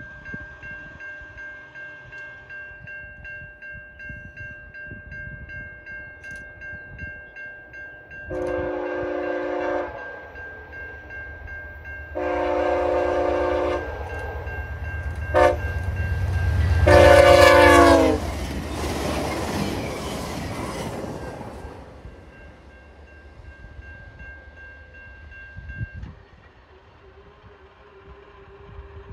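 VIA Rail passenger train's horn sounding the long, long, short, long grade-crossing signal. The last long blast drops in pitch as the train passes at about 90 mph, followed by a few seconds of rushing train noise. A grade-crossing bell rings steadily underneath and stops near the end.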